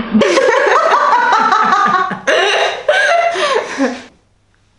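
A woman laughing hard in quick repeated bursts of "ha", stopping suddenly about four seconds in.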